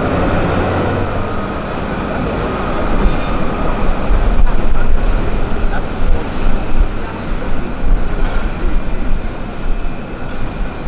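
Jet aircraft engines, a loud rumble that swells about three seconds in and wavers in loudness.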